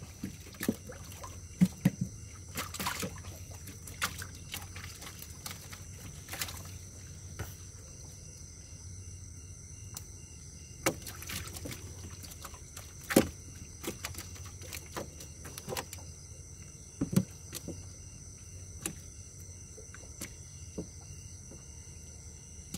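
Water splashing with sharp knocks at irregular intervals as fish are scooped out of the water with a dip net, over a steady low hum and a thin high-pitched background tone.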